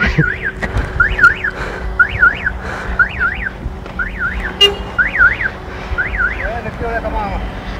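Car alarm sounding: a siren that sweeps up and down in quick pairs, about one pair a second, over low traffic rumble.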